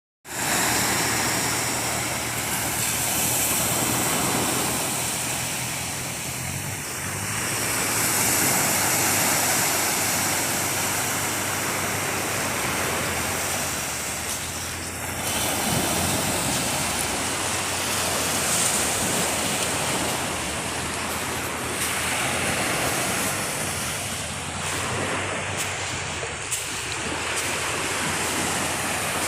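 Sea surf breaking and washing on a beach, a steady rush of water that swells and eases every several seconds.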